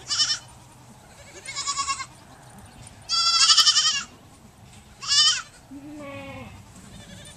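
Young goat kids bleating: four high, wavering bleats, the longest and loudest about three seconds in. A fainter, lower falling call follows near the end.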